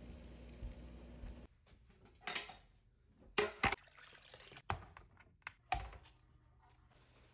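A steady low hum that cuts off after about a second and a half. Then a run of sharp knocks and clicks with some water sloshing, from a whole chicken being handled in a pot of water and a knife cutting on a wooden board.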